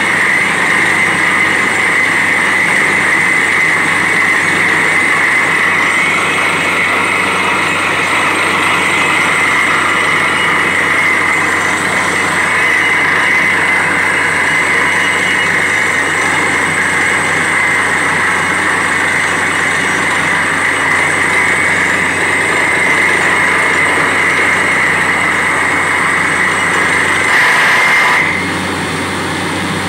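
Truck-mounted borewell drilling rig running loudly and steadily while drilling, a high steady hiss riding over the engine noise. Near the end the sound briefly swells, then the high part cuts off and the rig runs on quieter.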